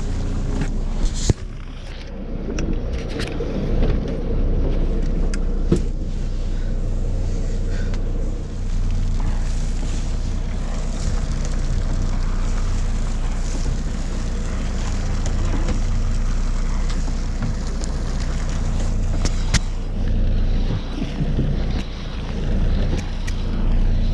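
Charter boat's engine running steadily, a low hum, with a few sharp clicks and knocks scattered through it.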